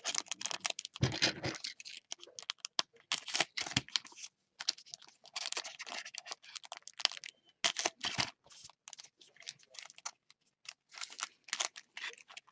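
Football trading card packs and cards being handled: quick scratchy rustles, tearing and clicks as packs are opened and cards are flipped and slid against each other, coming in irregular flurries with brief pauses.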